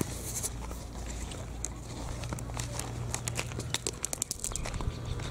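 Footsteps crunching on a gravel driveway: a run of short, irregular crunches, thickest in the second half, over a low steady hum.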